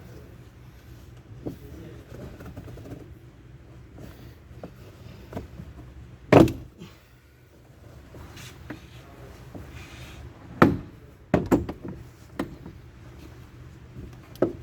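A few sharp knocks and clacks of hard objects being handled, the loudest about six seconds in and a cluster around eleven seconds in, over a low steady hum.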